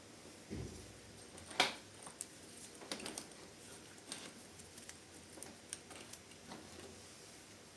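Scattered light clicks and taps of small parts and hand tools being handled during work on a dirt bike's drive-chain sprocket. There is a dull thump about half a second in and one sharper click about a second and a half in.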